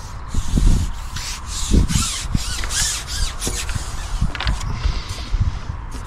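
Handling noise from fishing tackle: rubbing and scraping with a few dull knocks.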